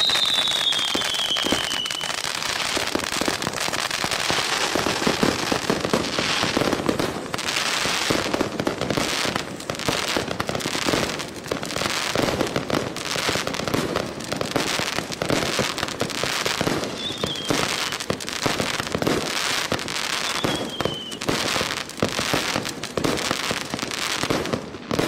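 Consumer fountain firework (1.4G, UN0336) burning: a continuous hissing spray of sparks thick with crackling pops. A falling whistle sounds in the first two seconds, and two short ones come later.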